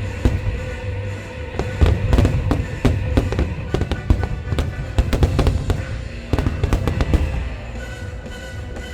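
Fireworks shells bursting in rapid succession over loud show music, the bangs thinning out about seven seconds in.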